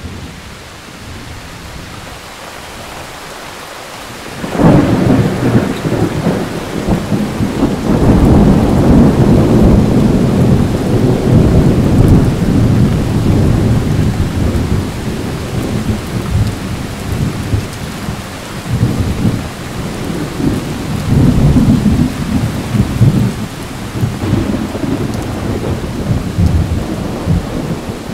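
Thunderstorm: steady rain hiss, then a sudden loud thunderclap about four and a half seconds in that rumbles on for over ten seconds, with a second wave of rumbling thunder later on.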